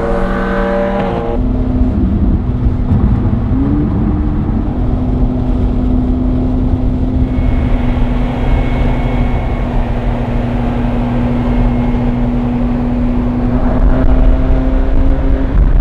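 Ferrari engine and road noise heard from inside the cabin while cruising on a highway: a steady engine drone over tyre rumble, the pitch stepping up slightly about four seconds in.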